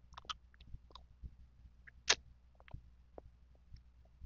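Close-miked chewing of mango: scattered small mouth clicks and smacks, with one louder click about two seconds in.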